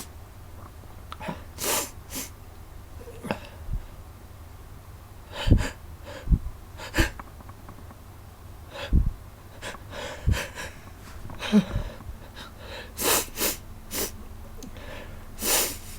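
A person sneezing again and again in short, sudden bursts a second or more apart, with several coming close together near the end.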